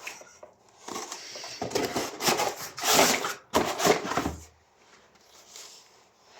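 Rustling and knocking of things being handled in a small room: a dense run of crackly rustles and sharp knocks from about a second in until past the four-second mark, then quiet.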